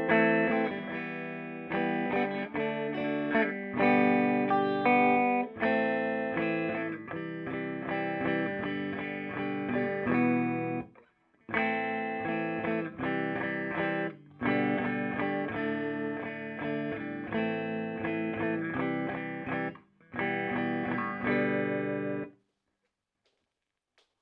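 Electric guitar played through a Peavey Bandit 112 combo amp's clean channel, with its 12-inch Blue Marvel speaker: notes and chords in three phrases separated by short breaks. The playing stops shortly before the end.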